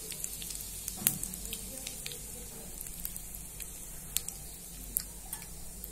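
Hot oil sizzling in a non-stick pan with mustard seeds, asafoetida and turmeric, with scattered sharp crackles of the mustard seeds popping. A light knock about a second in.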